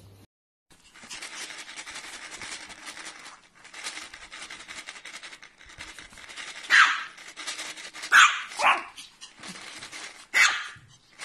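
Puppy barking: four short, high, sharp yaps, the first about seven seconds in and the last near the end. They follow several seconds of rough hissing noise.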